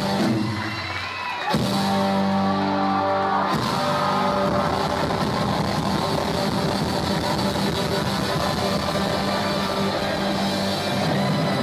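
Live rock band playing with drums and electric guitar. About a second and a half in, a chord is held for a couple of seconds, then the full band comes in and plays on steadily.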